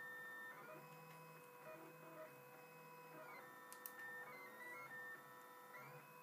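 Faint whine of an Ultimaker 3D printer's stepper motors as the print head traces a layer, several tones jumping to new pitches every second or two as the moves change speed and direction. A single faint click sounds near the middle.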